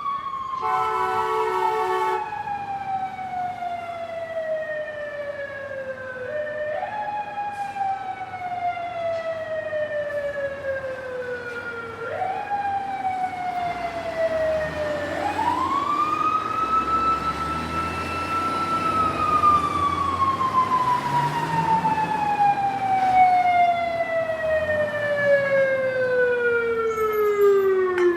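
Fire truck siren wailing in long, slow sweeps: the pitch falls over several seconds and climbs back up, again and again, then winds up higher, holds, and falls away low at the end. A short horn blast sounds about a second in, and a low rumble runs under the middle.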